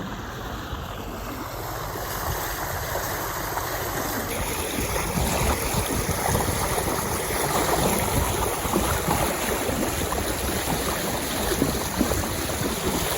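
Water rushing and splashing along a sailboat's hull as it moves, a steady noise that slowly grows louder.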